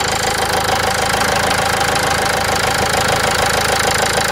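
Common-rail diesel car engine idling steadily with its even diesel clatter, running smoothly now that the faulty fuel rail pressure sensor, the cause of its rough, loud running, has been replaced.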